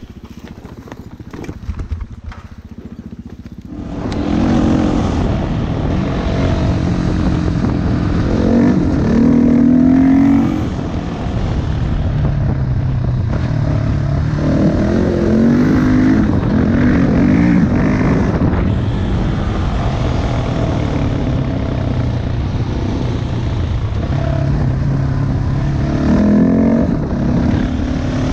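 Quiet clicks and rustling for the first few seconds, then the Husqvarna 701 Enduro's single-cylinder four-stroke engine comes in loud and keeps running, the bike moving along a gravel track. Its pitch climbs and drops several times as the rider accelerates and shifts.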